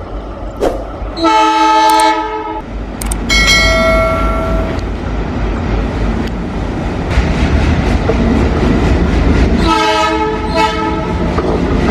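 A train sounds its horn three times, in blasts of about a second and a half each: one about a second in, one about three seconds in, and one near the end. Between the blasts its wheels rumble steadily along the rails.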